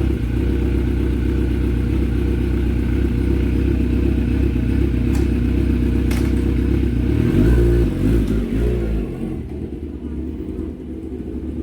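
Kawasaki Z900 SE's inline-four engine idling through an aftermarket replica exhaust, a steady deep note. About seven seconds in the note swells briefly, then the sound drops to a lower level.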